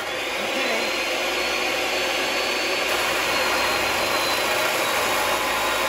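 Abrasive chop saw's cut-off wheel grinding steadily through rusty quarter-inch-wall steel tube. A faint high whine rises slightly over the first couple of seconds, then holds.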